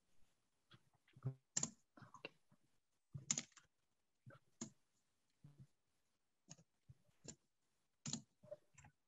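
Faint, irregular clicking of a computer mouse and keyboard, picked up by a video-call microphone.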